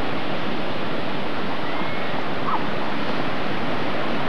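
Heavy ocean surf breaking and washing in, a steady rush of noise that does not let up.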